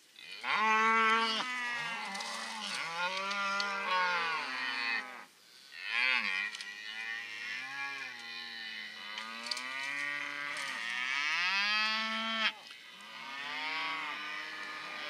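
Beef cattle bawling: a run of long, drawn-out moos one after another, each rising and falling in pitch, with short breaks between them.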